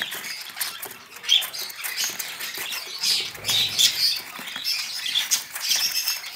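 Lovebird chicks giving scattered high, squeaky calls as they are handled, with soft rustling and little clicks of hands and nest material between the calls.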